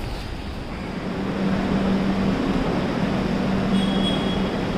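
Station ambience dominated by a steady low hum from trains standing at the platform, taking over about a second in, with a short faint high tone near the end.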